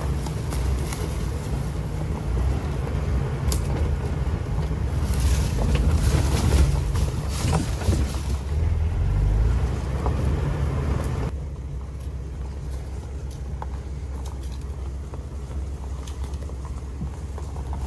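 Off-road vehicle driving along a wooded trail: a steady low engine and road rumble with wind noise and scattered knocks and rattles. About eleven seconds in the noise drops and thins as the vehicle slows.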